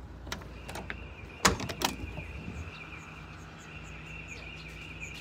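Excavator cab door being unlatched and swung open: a few light clicks, then two loud metal clunks about a second and a half in, over a steady low hum.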